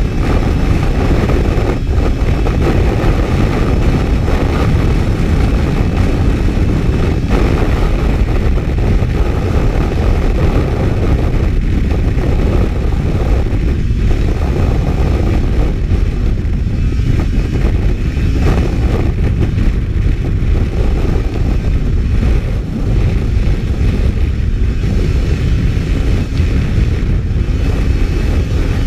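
Racing snowmobile running flat out on lake ice: a steady, loud rush of engine and track noise mixed with wind on the microphone.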